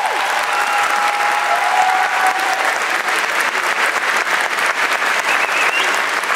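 A large audience applauding, with dense, steady clapping at the close of a choir's song.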